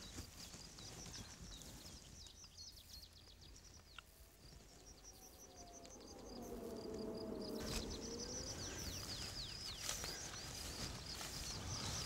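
Quiet mountain-pasture ambience with rapid series of short, high chirps from small wildlife. A soft rushing background grows louder about six seconds in.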